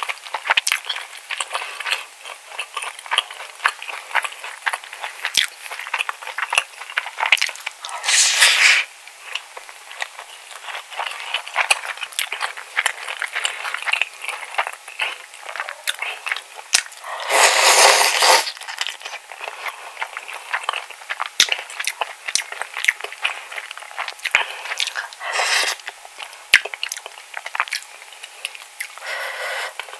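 Close-miked eating of spicy cockle bibimbap: wet, crackly chewing with many small mouth clicks, and a plastic spoon scraping and scooping rice in a ceramic bowl. A few louder short noisy bursts stand out, about 8, 17 and 25 seconds in.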